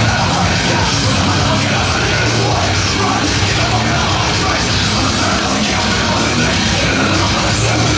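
Loud, dense heavy rock music played over a club sound system, steady throughout.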